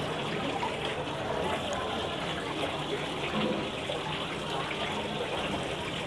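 Small artificial waterfall running steadily, water splashing into a mini decorative pond.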